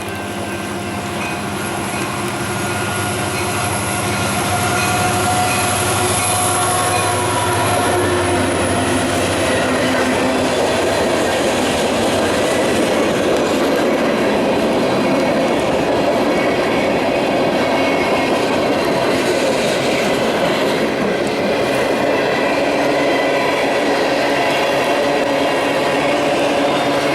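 A short freight train passing, led by two EMD SD70M diesel locomotives with 16-cylinder two-stroke engines. The locomotives' engine drone grows louder over the first few seconds and is strongest in the first several. It gives way to the steady rolling of freight cars, with clickety-clack over rail joints and wheel squeal.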